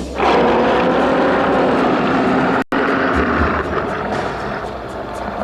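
Loud, drawn-out roar of a Tyrannosaurus movie monster (a sound effect), starting abruptly and broken by a very brief dropout just past the halfway point.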